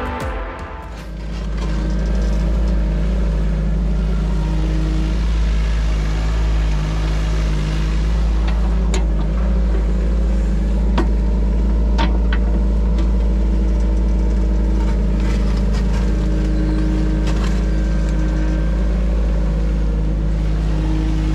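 Diesel engine of earthmoving machinery running steadily with a deep rumble, with a few sharp knocks in the middle.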